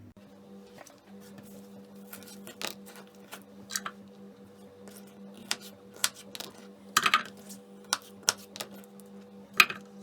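Kitchenware clatter: dishes and cutlery clinking and knocking irregularly, with a cluster of louder clinks about seven seconds in and another near the end, over a steady low hum.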